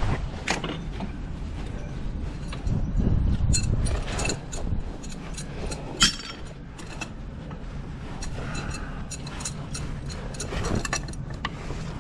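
Small metal clinks and knocks from hardware being handled: the bolts, bracket and regulator of a gas service riser, with one sharper knock about six seconds in.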